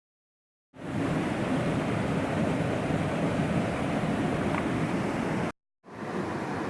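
Steady rushing of a fast mountain stream. It starts abruptly under a second in, cuts off about five and a half seconds in, and comes back a moment later where the clips are joined.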